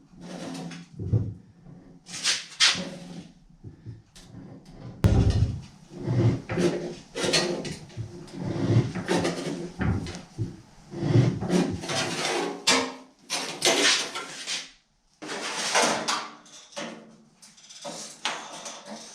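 Sheet metal and tools being handled: irregular knocks, clunks and scrapes, with a few longer scraping stretches.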